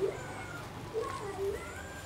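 Two short wavering animal calls, one right at the start and one about a second in.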